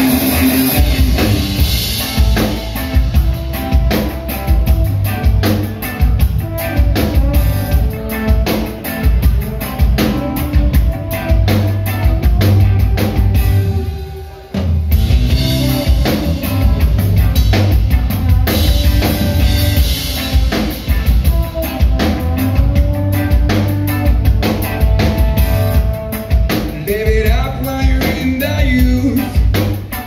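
Live band music with a drum kit playing a beat under the rest of the band. About halfway through it drops out briefly, then the band comes back in.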